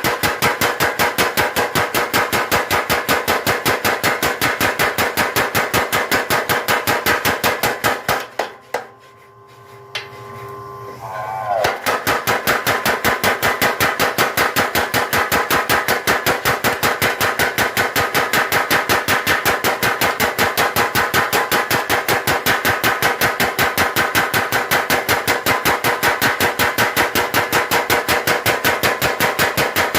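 Mechanical power hammer striking a bar of steel in rapid, regular blows, several a second. The blows stop briefly about a third of the way in, then start again at the same pace.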